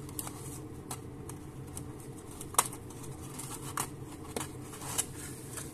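Light metallic clicks and ticks of a piston ring being spread with the fingers and worked into its groove on a piston, the sharpest click about two and a half seconds in, over a steady low hum.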